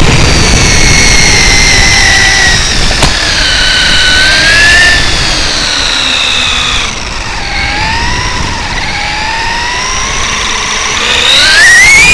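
Electric whine of a 1/10 Traxxas E-Revo's Hobbywing 2200kv brushless motor and gear drivetrain, with a low rumble underneath. The whine rises and falls in pitch with speed, eases off about seven seconds in, and climbs steeply near the end as the truck accelerates.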